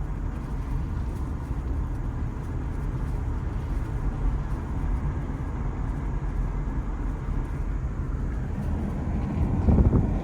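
Steady low rumble of road and engine noise heard from inside a moving car, briefly louder near the end.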